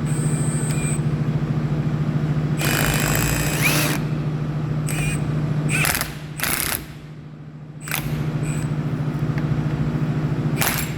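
An impact wrench hammering in several short bursts, the longest about three seconds in, as it drives a closing tool onto a Burndy knife connector. A steady low hum runs underneath.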